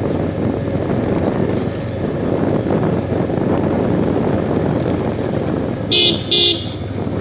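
Motorcycle running along a rough dirt road, a steady mix of engine and wind noise, with two short horn beeps about six seconds in.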